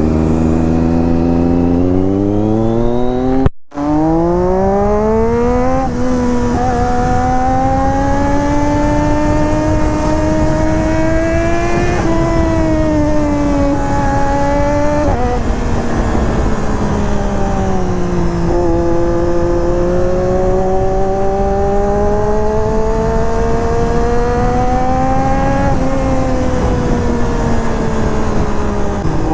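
Triumph Daytona 675's inline three-cylinder engine under way, its note climbing with the throttle and dropping suddenly at each of several upshifts. The sound cuts out for a moment a few seconds in.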